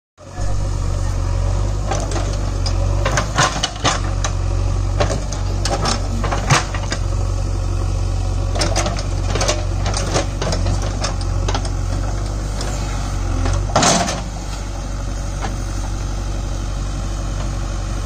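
JCB 3DX backhoe loader's diesel engine running steadily under load while the backhoe digs, with scattered knocks and clatter as the bucket and arm work the soil and roots, the loudest knock about fourteen seconds in.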